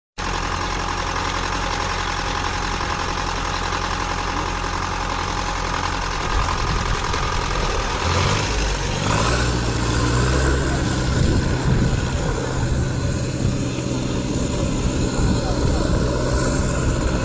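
Hummer H1 engine running while the truck is submerged in a river, its exhaust blowing out through the pipe above the water. It runs steadily, with a rough rumble of exhaust and water, and the low engine tone grows stronger about eight seconds in.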